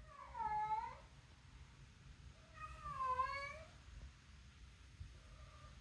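A tabby-and-white domestic cat meowing: two drawn-out meows about two seconds apart, each dipping and then rising in pitch, and a short faint one near the end.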